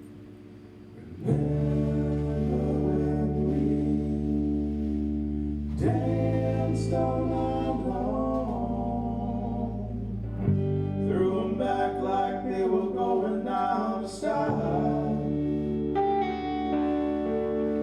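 A band's song: singing over guitar-backed chords, which change every four or five seconds, starting about a second in.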